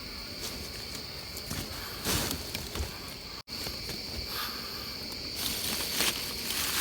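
Steady high-pitched chirring of forest insects, with a few short rustling and scraping handling noises. The sound drops out for an instant about halfway through.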